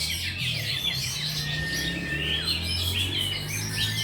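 Several oriental magpie-robins (kacer) singing at once: rapid chirps and whistled notes overlapping without a break, over a low steady hum.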